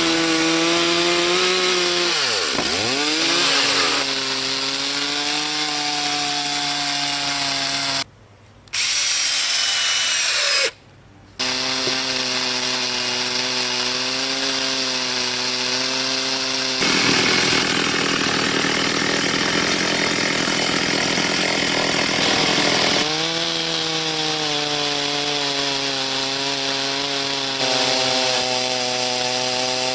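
Stihl MS360 two-stroke chainsaw running hard while ripping a bur oak log lengthwise into boards in a mini chainsaw mill attachment. The engine note dips under load a couple of seconds in. The sound cuts out briefly twice, about a third of the way through.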